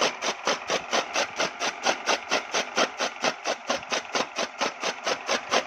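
Fodder chopper (chaff cutter) running, with a steady machine beat of about five strokes a second.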